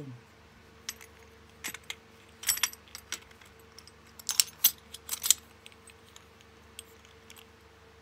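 Brass padlock keys hanging in handled Master Lock 410 lockout padlocks jangling and clinking. A scatter of sharp clinks begins about a second in and is thickest and loudest in the middle, then dies away.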